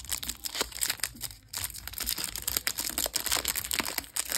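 Foil wrapper of a Topps 2022 Series 1 baseball card pack crinkling and crackling as the hands pull it open along its crimped seam.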